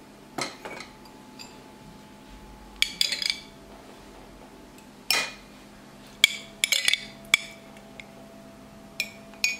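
A spoon clinking and tapping against a tomato-paste jar and a ceramic mug as tomato paste is scooped out. About a dozen sharp clinks come in small clusters, some ringing briefly.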